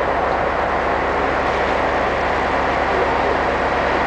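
Heavy machinery engine running steadily while a crane hoists the front car body of a derailed train.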